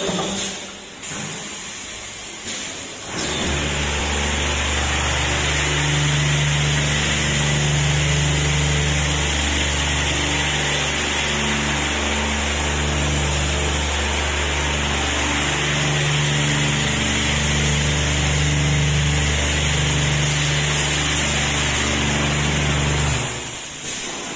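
A 5-gallon bottle washing machine running: a steady, loud motor hum with a hiss of water spray starts about three seconds in and cuts off about a second before the end. Quieter hiss comes before it.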